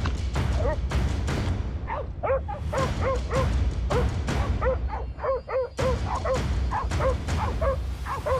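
Pig dogs barking repeatedly at a wild boar they have bailed: short, arching barks about two to three a second, coming thick from about two seconds in. Under them are a low rumble and knocks from the camera strapped to a dog running through scrub.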